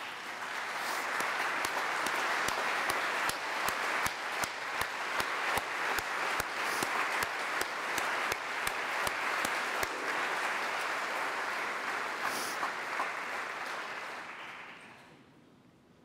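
A large crowd applauding: dense clapping that starts at once, holds steady, and dies away about a second before the end.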